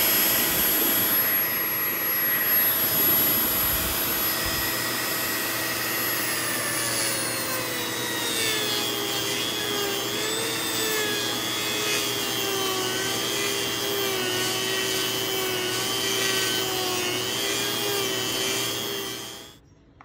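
Dremel rotary tool with a sanding drum running at high speed, grinding the axle hole of a metal caliper bracket wider. Its whine drops in pitch about six seconds in and then wavers as the drum works against the metal, and it stops just before the end.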